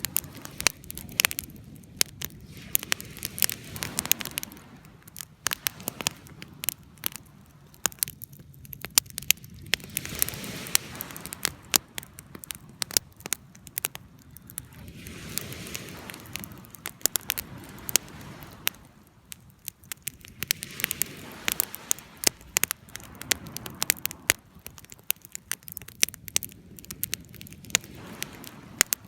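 Fire crackling: a dense, irregular run of sharp pops and snaps over a soft hiss that swells and fades every few seconds.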